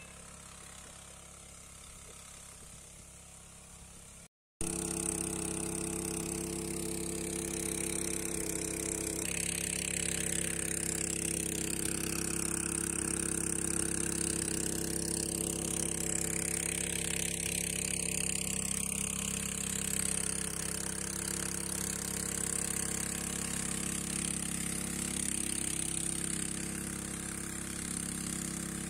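Small engine-driven water pump running steadily, faint for the first four seconds, then much louder after a break about four and a half seconds in.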